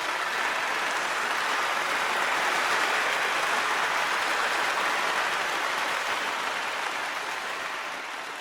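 Applause from a large crowd, a steady wash of clapping that slowly fades out near the end.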